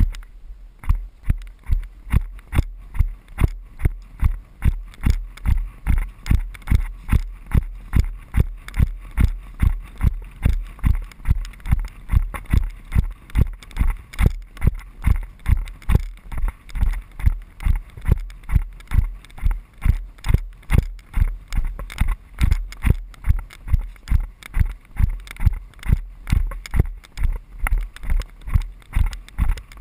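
Horse ridden at a steady gait on a sandy track: a regular beat of dull thumps, about three a second, from its hoofbeats and the jolt of each stride.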